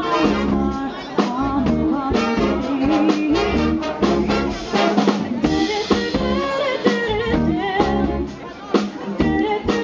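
Big band playing live: saxophone, trombone and trumpet sections over a drum kit, with a female vocalist singing.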